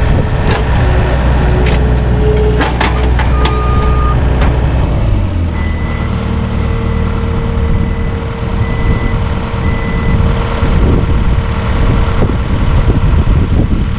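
Farm tractor engine running loud and steady, its low note dropping about five seconds in. After that comes a steady hum with short, high, evenly repeated beeps for a few seconds.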